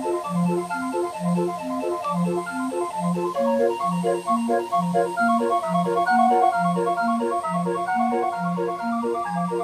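Calliope playing a bouncy tune: a steady bass-and-chord beat, about one bass note a second, under a melody in organ-like pipe tones.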